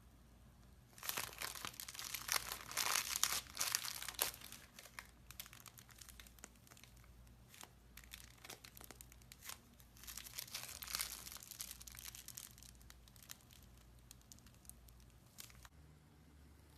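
Foamy slime, with shaving foam worked into it, being squeezed and stretched by hand: a dense crackling of tiny pops and clicks in two bursts, about a second in and again around ten seconds in, with scattered clicks between.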